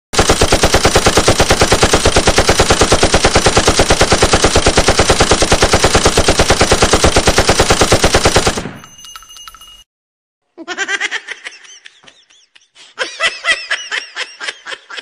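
Machine-gun fire sound effect: a fast, steady, unbroken burst of shots lasting about eight and a half seconds, which then dies away. Quieter, irregular taps and clicks follow near the end.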